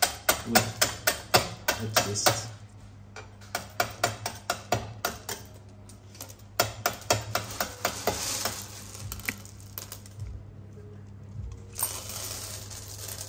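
Small pieces of hard candy clicking and clattering on a stainless-steel table as gloved hands spread and sort them. The clicks come fast and even for about the first two seconds, then turn irregular.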